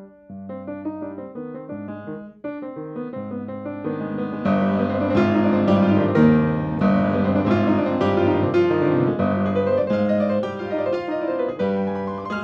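Piano music played as a run of separate notes that grows louder and fuller about four and a half seconds in.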